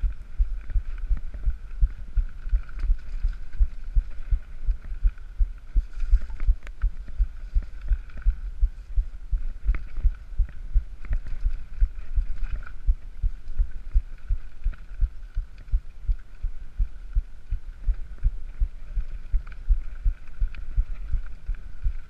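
Mountain bike ridden fast down a dirt trail: rapid, uneven low thumping and rattling from the bike over the bumps, several knocks a second, with a faint steady hiss above it.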